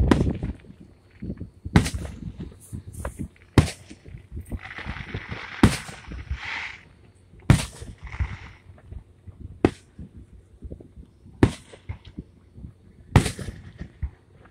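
Aerial firework shells bursting in the sky: a string of sharp bangs, about one every two seconds, with a rushing hiss between the bangs in the middle.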